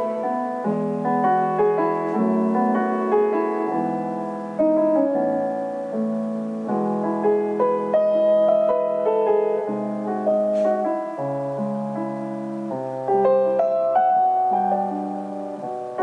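Background piano music: a steady run of notes with a low accompaniment, played behind a recipe card.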